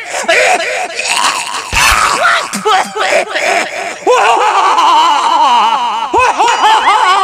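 Men's voices yelling and laughing loudly without clear words, with a low thump a little under two seconds in.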